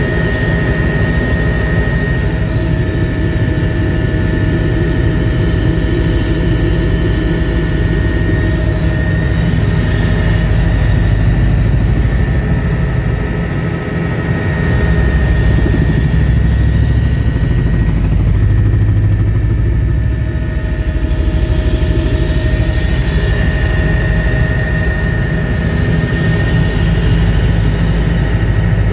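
Helicopter in flight heard from inside the cabin: loud, steady rotor and engine noise with a thin high whine over it, dipping briefly about halfway through.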